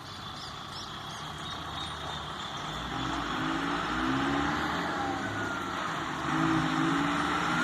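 Mercedes-Benz 1718 truck's electronically managed OM 904 four-cylinder diesel being revved, roaring hard. The revs climb twice, about three seconds in and again near the end, each time getting louder.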